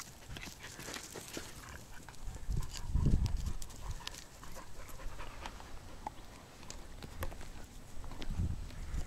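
Dogs snuffling and panting close up while nosing a stick on the ground, with scattered small clicks and crackles of twigs. Dull low rumbles come about three seconds in and again near the end.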